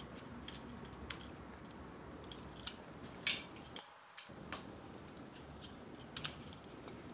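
Ball-end hex driver tightening small screws in a 3D printer's plastic extruder assembly: scattered light clicks and ticks of the tool on the screws and the plastic, the loudest about three seconds in.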